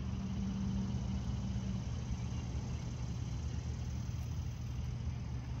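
A motor running steadily, a low hum, with a slightly higher tone in it that drops out about two seconds in.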